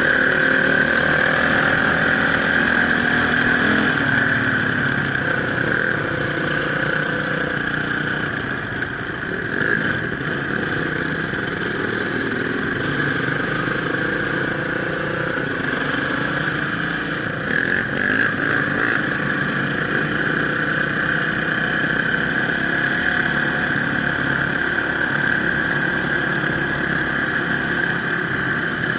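Enduro dirt-bike engine running continuously, its revs rising and falling as it rides off-road.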